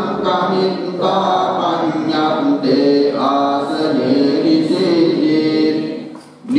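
Buddhist monks chanting a Pali paritta (pirith) sutta through a microphone, a slow, drawn-out recitation on sustained notes. The chanting dips briefly for a breath near the end.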